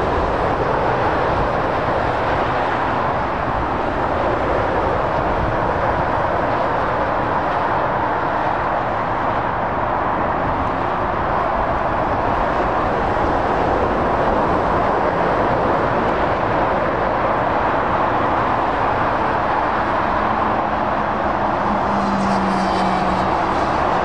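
Steady noise of dense motorway traffic, cars and lorries rolling past at speed, mostly tyre roar on the road surface. A faint low hum joins it near the end.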